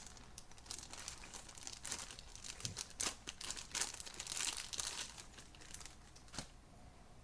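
Packaging being crinkled and torn open by hand: irregular crackling rustles that die away about six and a half seconds in.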